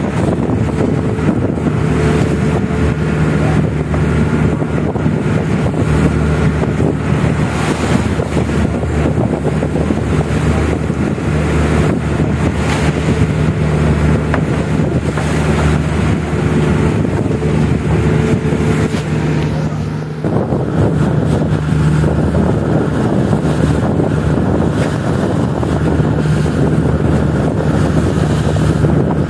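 Fishing boat under way in rough sea: the engine hums steadily beneath strong wind buffeting the microphone, and waves and spray break against the hull.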